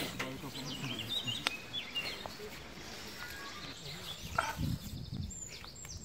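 Small birds chirping and calling in woodland, short high notes in quick runs, with people's voices talking low underneath. A single sharp click about one and a half seconds in.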